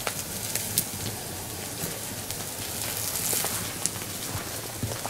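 Meat sizzling on a wire grill over a wood campfire, a steady hiss with scattered sharp crackles and pops from the burning wood.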